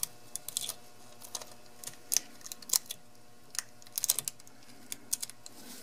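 Clear adhesive tape being handled and pressed down by nitrile-gloved fingers: scattered small crackles and clicks, with a brief cluster about four seconds in.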